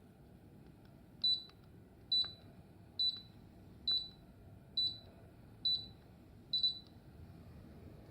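Seven short, high electronic beeps from a Mitsubishi MSZ-HR25VF air-conditioner indoor unit, evenly spaced a little under a second apart, over a faint steady hiss.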